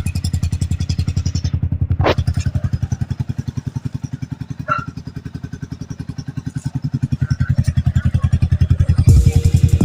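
Yamaha Sniper 155R's single-cylinder four-stroke engine idling through an Akrapovic double-hole slip-on exhaust: a steady, even train of rapid exhaust pulses, not too loud, growing somewhat louder in the last few seconds.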